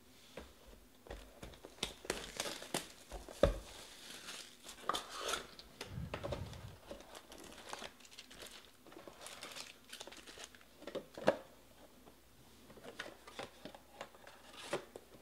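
Foil card-pack wrappers crinkling and rustling as packs are pulled out of a cardboard hobby box and stacked, with irregular knocks and clacks from the box and packs being handled; the sharpest knocks come a few seconds in and again past the middle.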